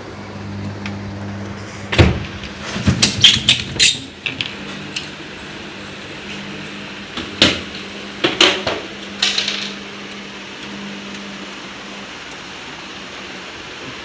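Knocks, clatter and scraping as the top panel of an IFB Senator Aqua SX front-loading washing machine is slid off and handled: a burst of sharp knocks from about two to four seconds in and a second cluster from about seven to nine and a half seconds. A steady low hum runs underneath and stops a couple of seconds before the end.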